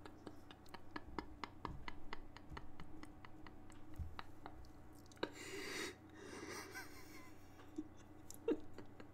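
A man's quiet, mostly silent laughter: faint breaths with a few short, louder breathy exhalations around five to seven seconds in, over faint scattered clicks.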